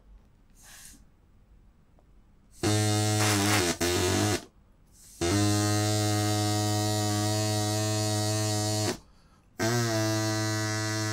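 Drinking-straw horn, lengthened to three straws joined end to end, blown to make a low, steady buzzing honk rich in overtones. Its extra length lowers the pitch to something like a ship's horn. It gives two short blasts about three seconds in, then a long blast of several seconds, and after a short break another long one.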